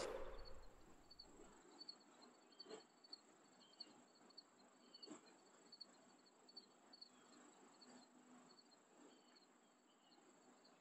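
Near silence with faint crickets chirping steadily and a few faint clicks.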